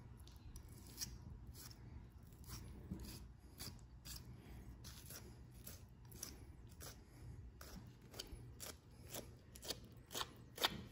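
Faint, short snicks of a scalpel blade slicing through deer hide and tissue, about two a second and louder near the end, as the cape is skinned free of the skull at the nose.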